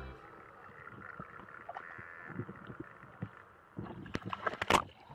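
Splashing and dripping of shallow river water around a wet border collie moving close by, faint at first, with a run of sharp, louder splashes in the last second or so.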